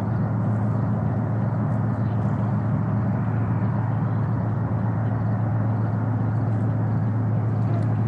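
Steady low hum over a constant rushing noise, with no change in level.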